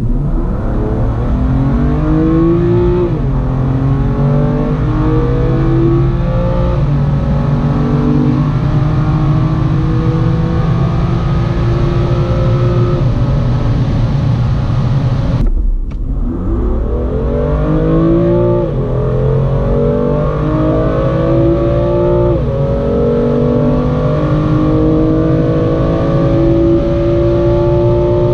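BMW M2 Competition's 3.0-litre twin-turbo inline-six pulling at full throttle, the revs climbing through each gear and dropping sharply at quick upshifts of its seven-speed dual-clutch gearbox. Two runs: the first shifts twice in its opening seven seconds and then pulls long in one gear; after a brief break about halfway, the second shifts at roughly four-second intervals, the last right at the end.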